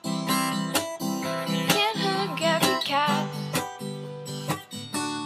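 Song's instrumental stretch: an acoustic guitar strummed in a steady rhythm, about one strum a second.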